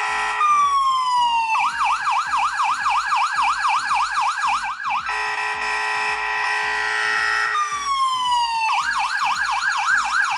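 Smartphone anti-theft alarm app sounding a loud electronic police-style siren, set off by the charger being unplugged. It cycles through a steady tone, a falling whoop and then a fast warbling yelp of about four sweeps a second, and the cycle starts over about halfway through. A low pulsing beat runs under it.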